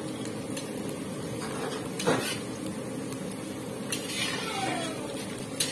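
A metal ladle stirs and scrapes sliced onions frying in oil in an aluminium kadai, over a steady sizzle, with three sharp clinks of the ladle against the pan.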